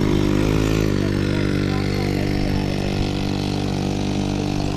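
Small seated scooter's motor running steadily, dropping in pitch about a second in as the scooter rides off.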